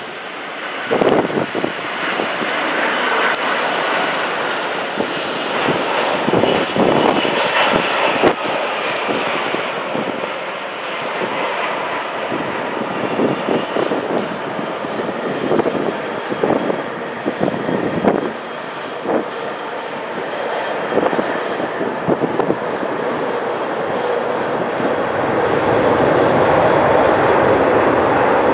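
McDonnell Douglas MD-11F freighter's three jet engines on approach, touchdown and rollout: a steady jet rumble and whine, growing louder near the end.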